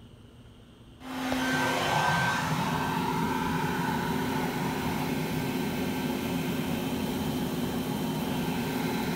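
Bee vacuum switched on about a second in and running steadily, used to suck up clustered honey bees during a live removal.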